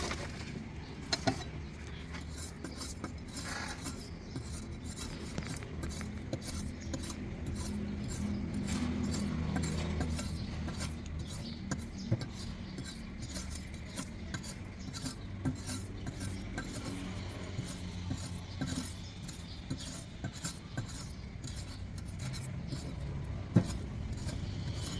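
Knife scraping and chopping at a fresh coconut, many small scrapes and sharp knocks coming irregularly, over a low steady rumble.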